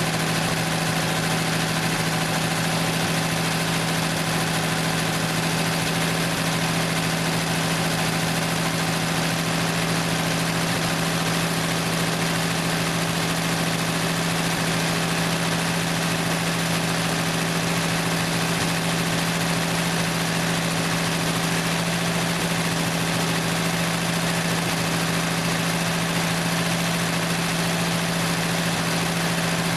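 1968 Plymouth Valiant's slant-six engine idling steadily.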